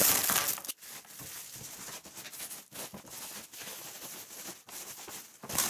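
Plastic stretch wrap crinkling and tearing as a package is unwrapped by hand. It is loud at the start, quieter with intermittent rustles and crackles through the middle, and louder again near the end.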